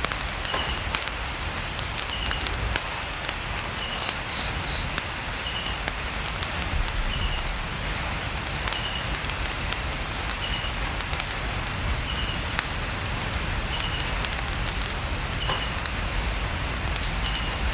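Light rain pattering steadily on a tent roof, mixed with the sharp crackles of a campfire. A faint short high chirp repeats every second or two.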